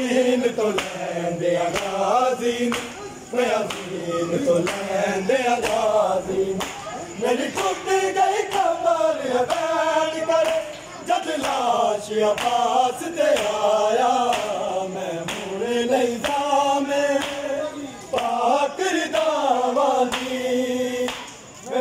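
A group of men chanting an Urdu noha (Muharram lament) together in unison, with the regular slaps of hands beating on bare chests (matam) marking the rhythm.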